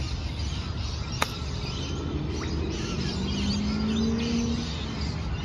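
A single crisp click about a second in as a 7-iron strikes a golf ball for a low bump-and-run chip off a tight lie. Behind it is a low steady outdoor rumble, a low drone that swells and fades in the middle, and faint bird chirps.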